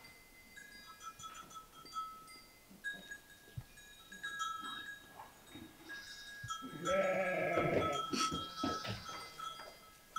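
A sheep bleats once, a single long call of about a second, about seven seconds in; the rest is quiet pen sounds with faint short high chirps.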